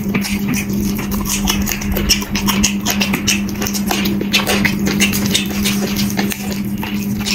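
Close-up chewing and wet mouth smacking of someone eating curry and rice, a rapid, irregular run of clicks, over a steady low hum.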